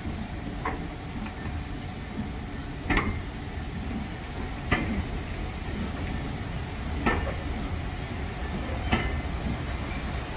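A train of passenger coaches rolling slowly past at close range. The wheels knock sharply over the rail joints about every two seconds, over a steady low rumble.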